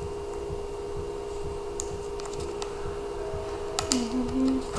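Clear plastic blister packaging clicking and crackling as fingers pry and squeeze at it to get it open. There are a few sharp clicks about two seconds in and a louder cluster near the end.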